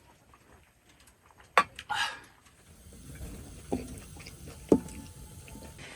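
A few sharp clicks and clinks of tableware, one leaving a brief ring, over a steady patter of rain on the tent.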